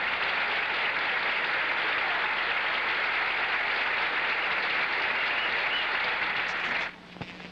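Crowd applauding steadily after a tournament-winning strike. The applause cuts off abruptly near the end.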